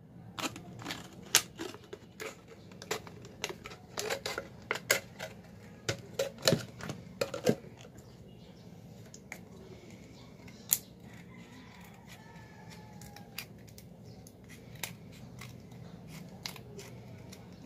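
Scissors snipping through a thin plastic Coke bottle: a quick run of sharp clicking snips for the first seven or eight seconds, then only an occasional single snip.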